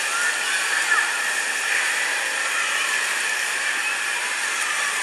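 Wave pool surf churning and splashing, a steady rushing hiss of moving water.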